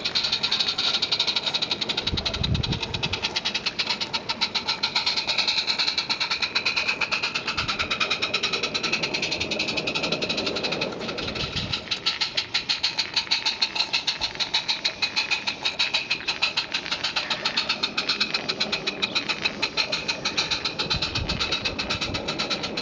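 Small live-steam garden-railway locomotive chuffing steadily, with rapid, even exhaust beats as it hauls its coaches along the track.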